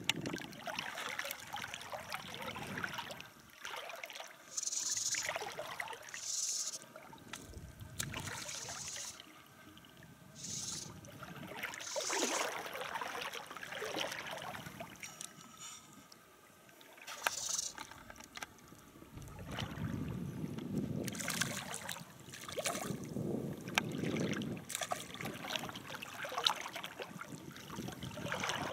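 Water sloshing and splashing around an angler's legs as he wades in a shallow river, coming in uneven bursts.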